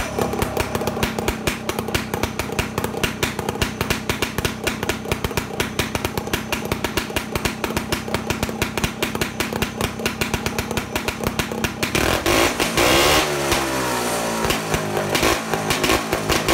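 Air-cooled snowmobile engine running at a fast, even idle. About twelve seconds in it is revved briefly, and its pitch falls back as it slows down again.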